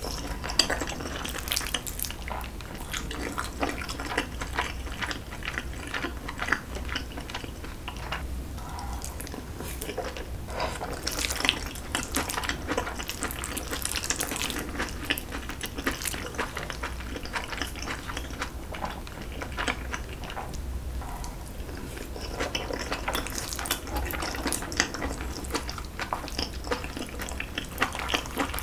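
Close-miked eating of braised kimchi with rice: wet chewing and slurping, with many small clicks of a spoon and chopsticks against a bowl.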